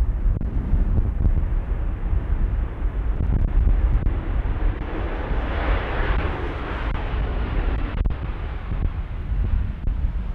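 Jet airliner engine noise: a deep rumble with a hissing rush that swells and fades about halfway through, mixed with wind buffeting the microphone.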